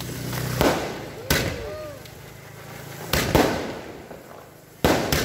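Diwali aerial fireworks bursting overhead: about five sharp bangs, two of them close together about three seconds in, each trailing off into crackle.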